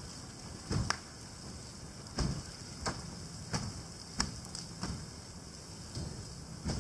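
Fire burning in a snowmobile's engine bay, with irregular sharp crackles and pops, about ten of them, unevenly spaced over a faint steady hiss.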